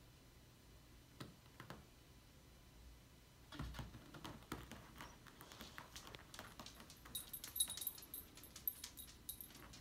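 Faint scuffling and clicking of a cat and dog moving about on a wooden parquet floor. From about seven seconds in comes a light metallic jingle, typical of a dog's collar tags as it moves.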